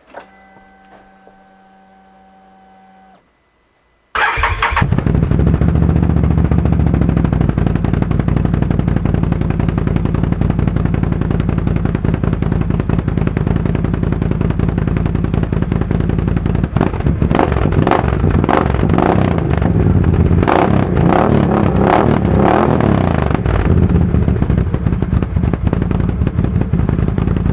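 A faint steady hum for about three seconds, then a Can-Am Outlander's V-twin engine starts about four seconds in and runs loudly through a newly fitted Yoshimura aftermarket exhaust. The sound grows more uneven in the second half.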